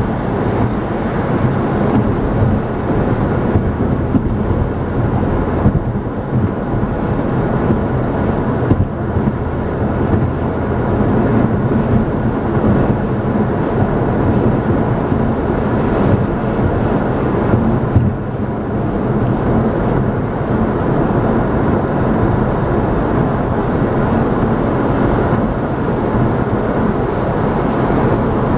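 Steady road noise of a car cruising at highway speed, heard from inside: tyres on the pavement and engine hum, with a little wind.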